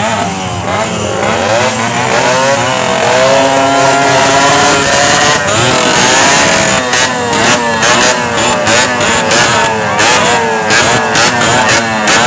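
A pack of small motorcycles and scooters running together, with several engines revving and their pitch rising and falling, choppier near the end.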